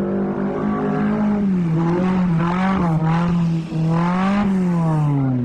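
Off-road 4x4's engine revving hard under load, its pitch wavering up and down as it drives through mud, then falling away near the end.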